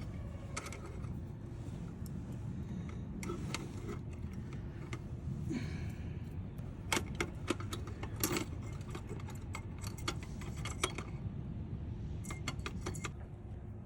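Small metallic clicks, clinks and scrapes of a spring-held bug screen being fitted over an RV heater outlet, with a cluster of sharper clicks in the middle and another near the end, over a steady low rumble.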